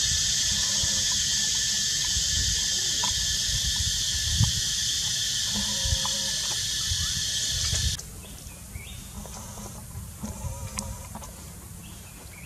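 Steady high-pitched drone of forest insects, with low wind rumble buffeting the microphone. Both cut off suddenly about two-thirds of the way in, leaving quieter forest background with a few faint chirps and a single click.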